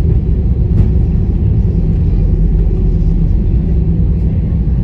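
Airbus A320's CFM56 engines and wheels heard from inside the cabin during the landing rollout: a loud, steady low rumble.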